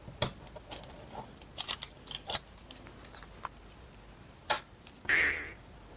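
Hands handling paper and small parts on a desk: a scattering of sharp clicks and taps, then a short rustle about five seconds in.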